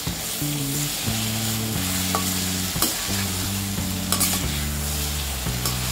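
Green brinjal pieces and green masala paste sizzling in oil in a stainless steel kadhai while being stirred with a slotted metal spatula, which clicks and scrapes against the pan a few times. Soft background music with low held notes plays underneath.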